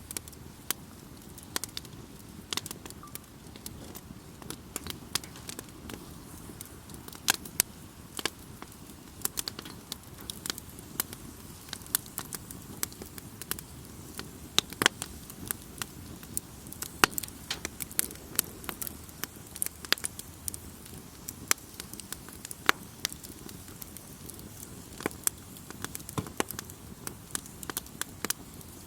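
Wood campfire crackling, with sharp irregular pops over a steady low rush.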